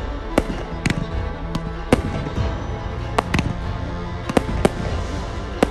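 Consumer aerial fireworks bursting overhead: about nine sharp bangs at uneven intervals, some in quick pairs, over music.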